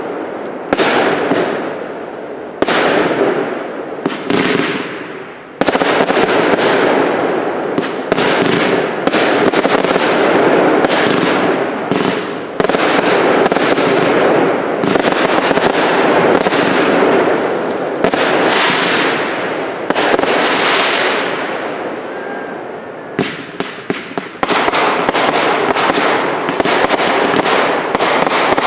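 Firework cakes (multi-shot batteries) firing a continuous barrage: rapid, overlapping bangs and bursts with crackle, each trailing off into the next. The barrage eases briefly about three-quarters of the way through, then picks up densely again.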